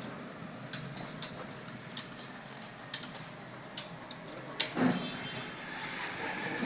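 Computer keyboard keys being typed on during a typing test, irregular clicks with a louder knock just before the five-second mark.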